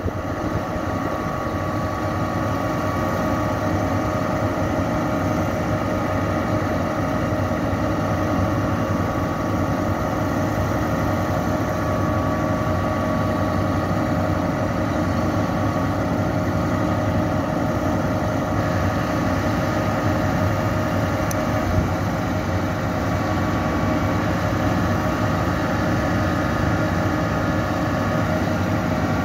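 Diesel engine of a Putzmeister 42 m truck-mounted concrete pump running steadily, driving its hydraulic pump, with a steady whine over the engine hum. The hydraulics are moving the boom, exercising the freshly repaired boom cylinders no. 1 and 4.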